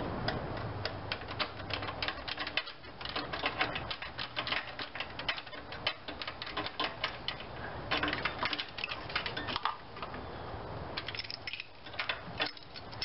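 Rapid metallic clicking and clinking in quick runs with brief pauses, as a turnbuckle holding the serpentine belt tensioner back is spun loose by hand, letting the tensioner take up tension on the new belt.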